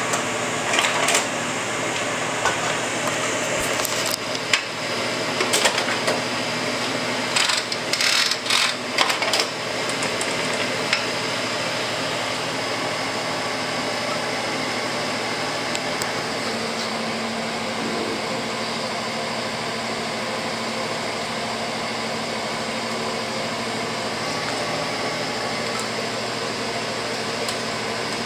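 Kodak Carousel 4400 slide projector running, its cooling fan humming steadily. During the first ten seconds the slide-change mechanism clicks and clunks in several quick clusters as slides are advanced.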